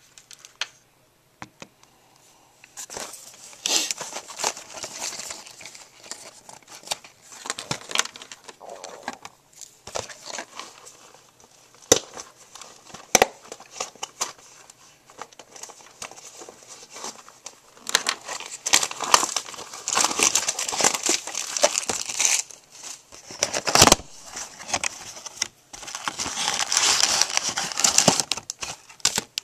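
Plastic shrink wrap crinkling and tearing in irregular bursts as it is stripped from a trading card box. There are a few sharp knocks of the box being handled, and the crinkling is busiest in the second half.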